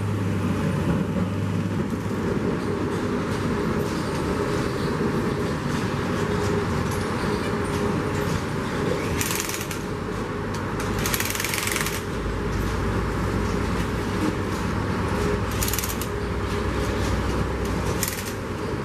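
Electric impact wrench hammering in four short bursts, the longest about a second, as it tightens the bolts of the clips that fasten the rail to the concrete sleepers, over steady machinery noise.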